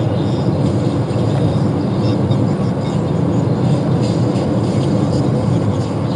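Steady road and wind noise from a moving vehicle cruising along a city road, a constant low rumble without breaks.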